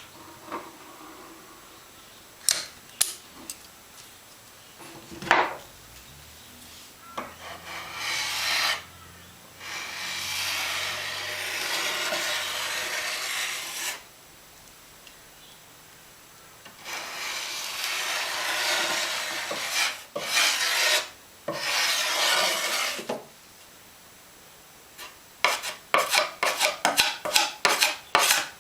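A scraper spreading acrylic sealant into a bed for a foam riser: long stretches of rubbing and scraping, with a few sharp knocks early on and a quick run of short strokes near the end, about four a second.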